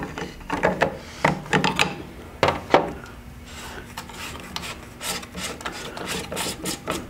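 Plastic piston end cap on a water softener control valve being unscrewed, first with a multi-tool and then by hand: irregular scraping clicks and rubbing of plastic threads and parts. The clicks thin out midway and return as a quicker run near the end.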